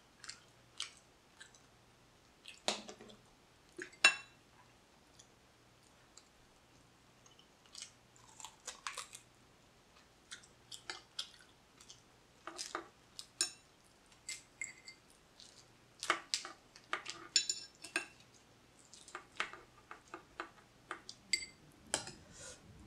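Boiled blue crab shell being broken and picked apart with a metal spoon and fork, with close-up chewing in between: a scattered run of sharp cracks and clicks, the loudest about three and four seconds in.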